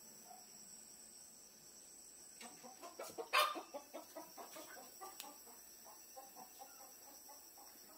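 A chicken clucking in a run of short, quick notes, with one loud squawk about three and a half seconds in.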